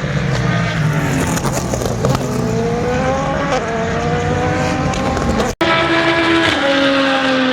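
Race car engines at full racing speed on a road course: one car's engine note rises steadily as it accelerates. About two thirds of the way in the sound cuts off abruptly, and another race car follows, its engine note falling slightly as it passes.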